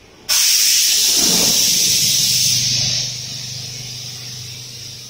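Rebonded foam making machine venting pressure with a sudden loud hiss. The hiss is strongest for the first three seconds, then drops and tapers off. A low steady machine hum runs underneath from about a second and a half in.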